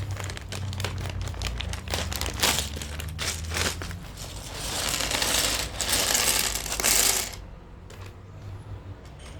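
Plastic keycaps clicking and clattering against each other as a keycap kit is unpacked by hand, then a longer spell of crinkling plastic packaging in the middle that stops about two-thirds through.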